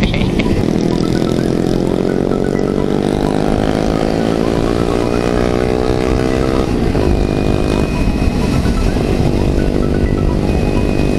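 A motorcycle engine accelerating hard, its pitch rising steadily through one gear. About two-thirds of the way in it drops at a gear change and then climbs again, over a steady rush of wind and road noise.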